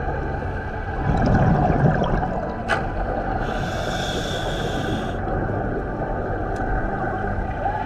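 Underwater ambience as picked up by a camera in an underwater housing: a steady muffled rumble with a faint whine, a louder bubbling swell about a second in, a single click, and a burst of hiss in the middle.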